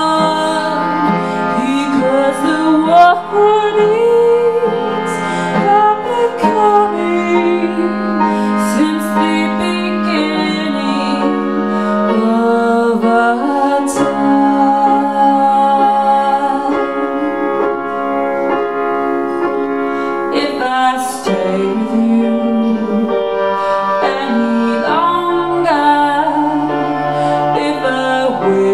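Piano and clarinet playing a slow jazz-blues passage together: sustained piano chords under a clarinet melody that bends and slides between notes.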